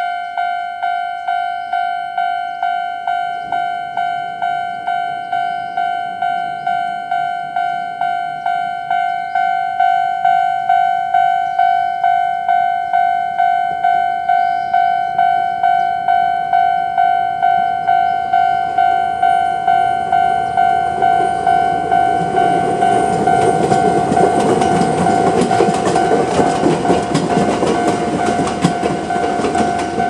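Japanese level-crossing warning bell of the old standard type, ringing steadily about twice a second. About two-thirds of the way in, a Chichibu Railway 7500 series electric train approaches the crossing, and its wheels' rumble and clatter on the rails grow loud toward the end.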